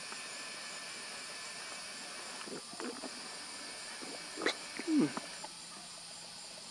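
Steady high-pitched chorus of evening insects, with a few short, low sounds partway through. The loudest of these come at about four and a half to five seconds, the last one falling in pitch.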